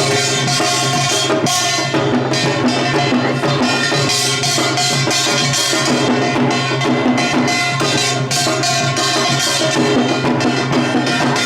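Korean samulnori percussion ensemble playing a fast, dense rhythm: clanging small brass gongs over janggu hourglass drums and barrel drum, with a ringing metallic wash.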